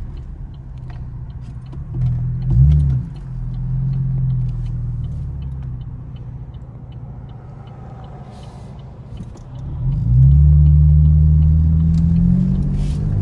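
Camaro engine and exhaust under way: a quick rev about two seconds in, then a low, quieter cruise, then hard acceleration from about ten seconds with the engine note climbing, and a drop in pitch at the end as it shifts.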